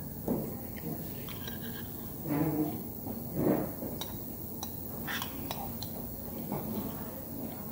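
Metal chopsticks clicking against a black earthenware bowl tipped up to the mouth, with a few sharp clicks in the second half. Two short mouth sounds from drinking from the bowl come before the clicks.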